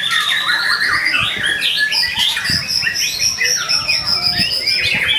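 White-rumped shama singing without pause: a fast, varied stream of whistles, trills and chattering notes, over a long high whistle.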